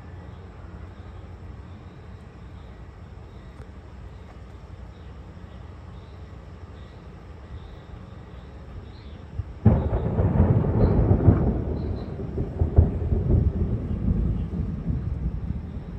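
Thunder: after a quiet stretch, a loud clap sets in suddenly about ten seconds in and rolls on as a deep rumble with several swells before easing near the end.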